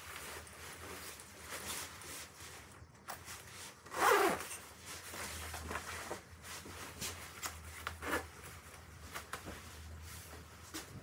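Zipper of a padded puffer jacket being pulled, the loudest stroke about four seconds in and a shorter one near eight seconds, amid rustling of the jacket's fabric.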